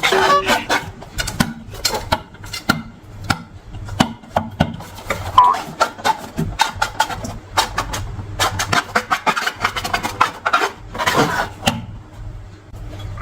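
Long balloons and slime being squeezed and handled: dense, irregular crackling clicks and rubbing, with a brief squeak about five seconds in.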